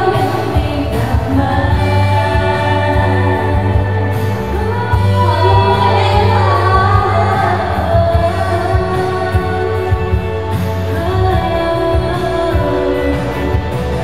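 Live female pop vocals sung into handheld microphones over a loud pop backing track with a strong, steady bass.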